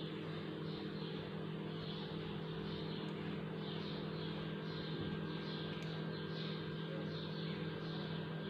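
A steady low electrical hum.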